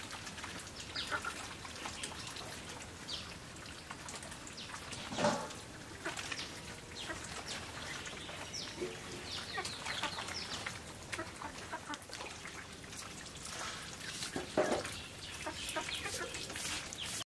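Scattered bird calls, chickens clucking among them, with two louder sudden sounds about five seconds in and again near the end.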